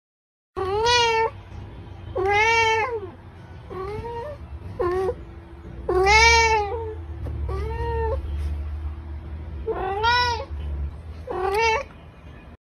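A cat meowing over and over, about eight meows, each rising and then falling in pitch, loud meows alternating with softer ones.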